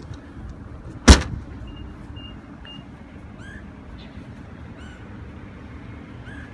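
The rear liftgate of a 2017 Nissan Murano SUV shutting with a single loud thud about a second in, followed by three short, even, high beeps.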